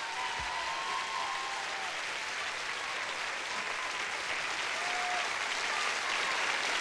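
Theatre audience applauding steadily at the end of a song.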